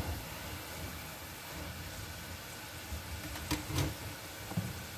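Steady hum and hiss of a stovetop kitchen. About three and a half seconds in come two sharp knocks close together, then a softer one, as a wall cupboard is opened.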